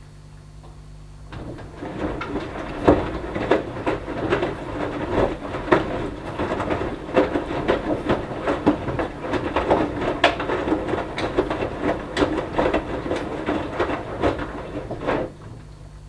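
Hoover Dynamic Next front-loading washing machine turning its drum during the wash phase: the wet fleece throw and cushion covers tumble and slosh in the water with many quick knocks and thuds. The drum starts about a second in and stops shortly before the end, leaving a low steady hum.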